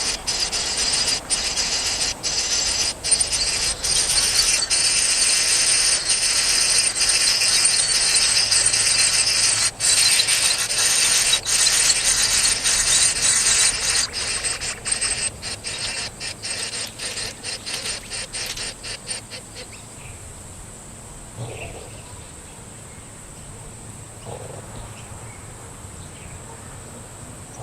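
Insects buzzing in a dense, high-pitched chorus, broken by many short gaps, which fades away after about fifteen seconds and leaves a thin steady high whine.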